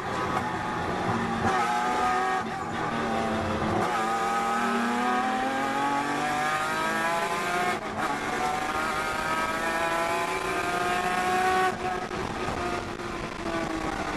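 Datsun 240Z race car's straight-six engine heard from inside the cockpit, pulling hard up through the gears. The pitch climbs in each gear, with upshifts about four and eight seconds in, and the engine note drops off about twelve seconds in.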